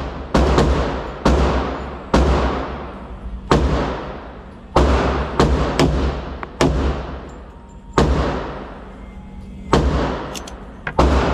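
Pistol shots fired in an indoor shooting range, about a dozen at irregular spacing with some in quick pairs, each shot trailing off in a long echo.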